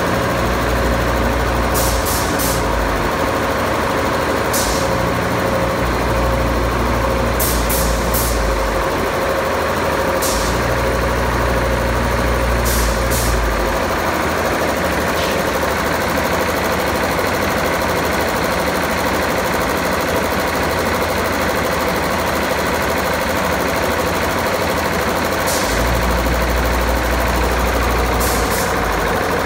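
Kirloskar KCX3 reciprocating ammonia refrigeration compressor running, a loud steady mechanical drone with a constant hum. A low rumble swells and drops several times, and there are short sharp clicks now and then.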